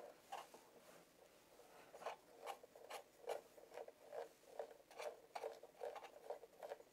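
Faint, even clicks from the control knob on a Colbor CL100 LED video light as it is turned to step the colour temperature, about three clicks a second from two seconds in.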